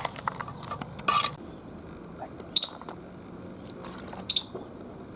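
Metal utensil scraping and clinking against a cooking pot of chana: a handful of separate strokes, a short scrape about a second in and two ringing clinks later on.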